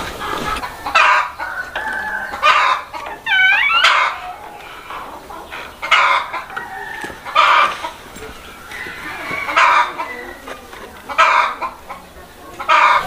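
Domestic fowl calling, a short loud call about every second and a half, with a run of squawks a few seconds in.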